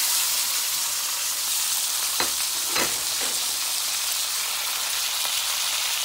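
Sliced carrots, snow peas and mushrooms sizzling in hot olive oil in a cast-iron wok just after going in: a steady, loud frying hiss. A couple of brief crackles about two to three seconds in.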